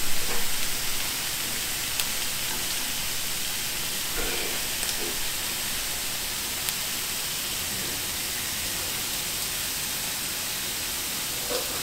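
Shrimp and sliced meat sizzling on an electric griddle: a steady frying hiss, with a few faint clicks.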